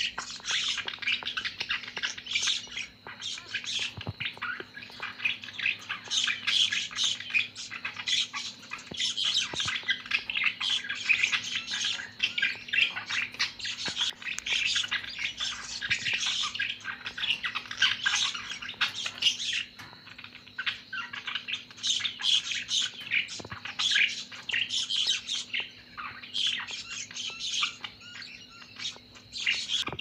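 Several budgerigars chattering and warbling in a cage: a dense, unbroken stream of quick high chirps and squawks.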